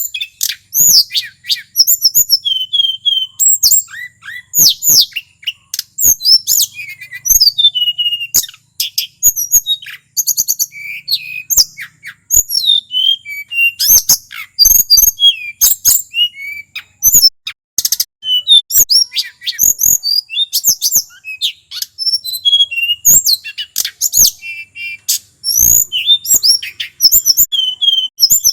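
Male tledekan gunung singing without pause: a fast, varied run of high whistled notes, rising and falling glides and quick trills, studded with frequent short sharp clicks.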